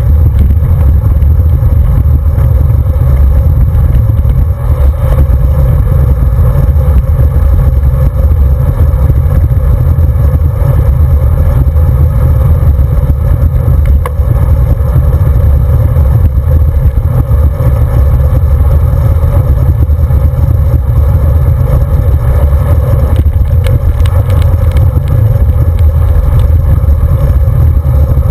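Wind buffeting the microphone of a handlebar-mounted camera on a road bike riding along at speed: a loud, steady low rumble.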